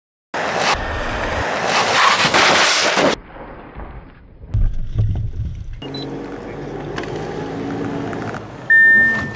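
A car driving into a stack of empty cardboard boxes, a loud rush of noise followed by a few dull knocks. Then a car engine running, heard from inside the cabin, and near the end a single loud high warning beep: the collision alert of an automatic emergency braking system.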